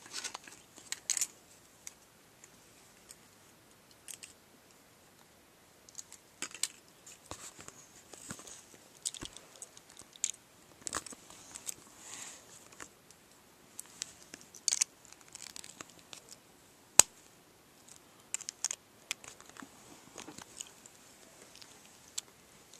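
Beyblade top being assembled by hand: irregular small clicks of metal and plastic parts being fitted together, with handling rustle and some crinkling. The sharpest click comes about 17 seconds in.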